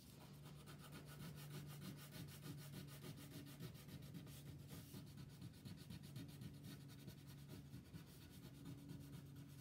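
Blue wax crayon rubbed back and forth on paper in quick, even strokes, faint.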